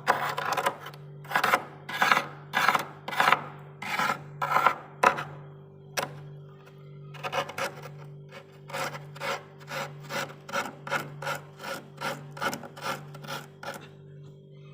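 Spoon scraping frost in repeated rasping strokes, spaced at first, then after a short pause quicker, about three a second, over a steady low hum.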